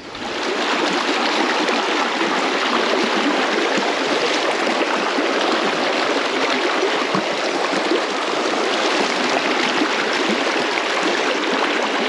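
Shallow river rushing over a stony riffle close by: a steady, even rush of water that fades up at the very start and holds unchanged.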